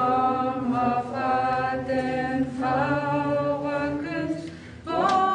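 Unaccompanied group of voices singing a slow song in long held notes, with a short break before a new phrase near the end.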